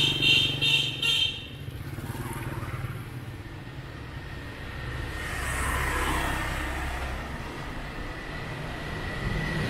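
City street traffic: a steady low engine hum with motorbikes and cars passing, one swelling past about five seconds in. In the first second a rapid run of high, ringing beeps sounds, then stops.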